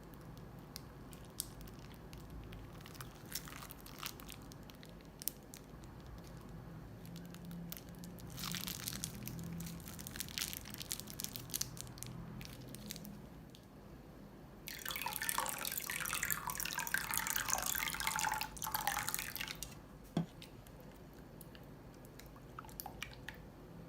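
Wet, sticky slime squelching and dripping as it is handled. It comes in two spells of crackly squelching, the second and louder one about fifteen seconds in, with scattered small clicks between them.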